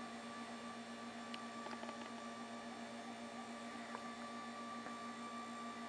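Touchstone Whisper Lift II TV lift motor running as it lowers the TV into the cabinet: a steady hum with a few faint ticks.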